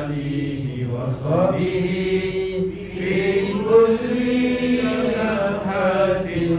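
Devotional chanting by voice, in a slow melodic style with long held notes.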